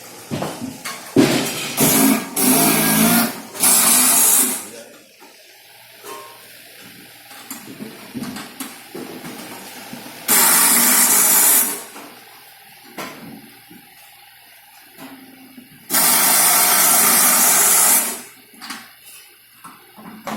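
Factory workshop noise: several loud bursts of hissing in the first few seconds, then two longer hisses of a second or two each that start and stop abruptly, with quieter clatter between them.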